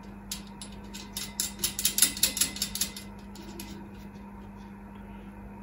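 Small metal clicks and ticks as a nut is fitted by hand onto a bolt on a plastic capacitor end plate, coming quickly about a second in, loudest around two seconds, and stopping a little before four seconds. A steady low hum runs underneath.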